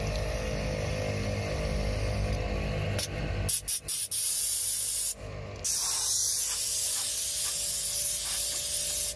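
Compressed air from an onboard air system hissing through a tire inflator hose and chuck, first a few short bursts, then a longer blast, a brief pause, and a long continuous blast. A steady hum runs underneath the first few seconds.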